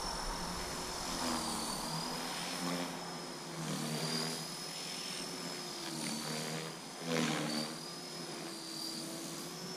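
Align T-Rex 450 electric RC helicopter in flight: a steady high whine from its motor and rotor head, its pitch sagging and rising a little as the load changes. Two brief louder swells of rushing noise come in, the bigger one about seven seconds in.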